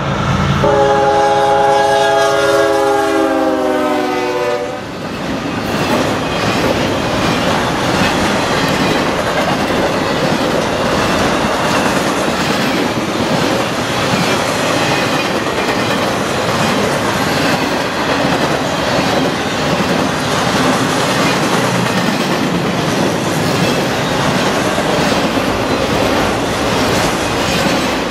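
Freight locomotive's multi-tone air horn sounding a long blast, its chord dropping in pitch as the lead engines pass and cutting off about five seconds in. Then the steady noise of a CSX intermodal freight train rolling past, wheels clicking over the rail joints.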